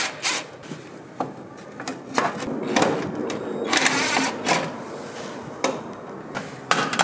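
Cordless drill-driver running in several short bursts as it backs screws out of a Land Rover's steel footwell panel, with a few sharp clicks and knocks of metal between the bursts.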